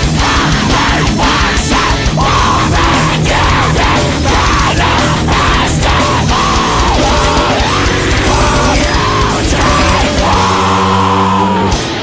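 Loud, aggressive heavy rock music: a full band with distorted guitar and regular drum hits. In the last two seconds a sustained chord rings out over it.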